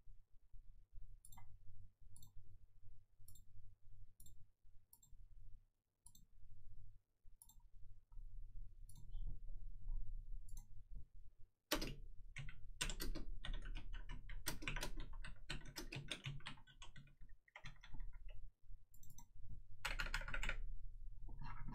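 Computer keyboard being typed on: light, scattered clicks at first, then from about halfway a run of fast typing with brief pauses and a last short burst near the end.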